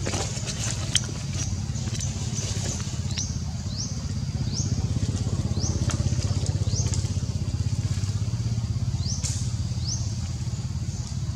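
A small engine running steadily nearby, a low rumble with a fast even pulse. Over it comes a run of short, high, rising chirps, repeated about every two-thirds of a second from a few seconds in, with a few sharp clicks near the start.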